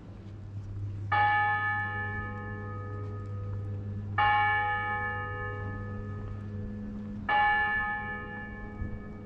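A large bell tolling: three single strikes about three seconds apart, each ringing on and fading slowly. A low steady hum continues underneath.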